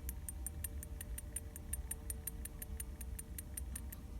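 Used GMB water pump being shaken by hand, rattling inside with light, quick clicks, about six a second: free play inside the pump that the owner is unsure is normal.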